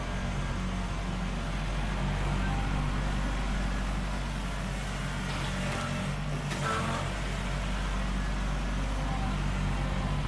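Excavator's diesel engine running steadily, with a brief burst of noise a little past halfway.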